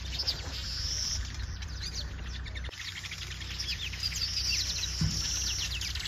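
A colony of weaver birds chattering from their hanging woven nests: many overlapping quick, high chirps and a buzzy chatter, over a steady low rumble.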